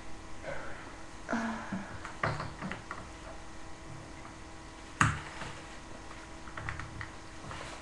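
Scattered small clicks and taps of objects being handled close by, with one sharper knock about five seconds in.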